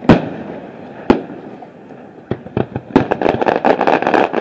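Aerial fireworks shells bursting: a loud boom just after the start that trails off in an echo, another about a second in, then a quick run of many small crackling pops from about three seconds in.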